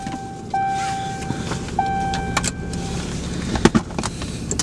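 A car's interior warning chime dings three times, a little over a second apart, the last one fading out. A couple of sharp clicks follow later on.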